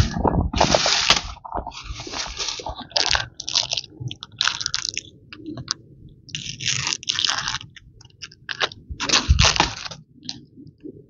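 Repeated dry crunching and crackling in irregular bursts, some louder than others, like dry material being crushed or broken.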